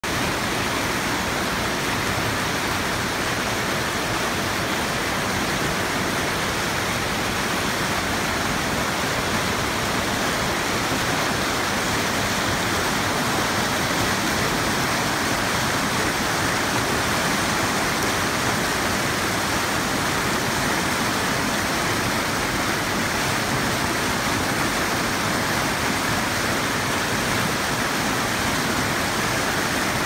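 Whitewater of a mountain creek rushing over rock ledges: a steady, unbroken rush of water with no change in level.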